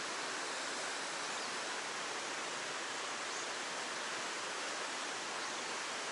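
Steady rush of a stream's flowing water, an even hiss with no breaks.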